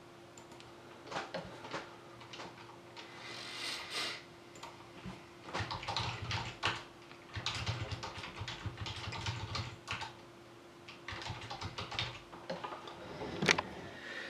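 Typing on a computer keyboard: irregular runs of key clicks, with a faint steady hum underneath. Near the end there is one louder knock.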